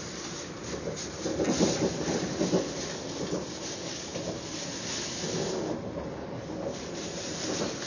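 Train running at speed, heard from inside the carriage: a steady rushing and rumbling of wheels on the track, somewhat louder in the first few seconds.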